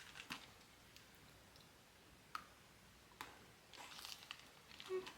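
Faint chewing of crunchy strawberry Pocky biscuit sticks, with a few sharp clicks and a soft crackle. Near the end come short hummed "mm" notes of enjoyment.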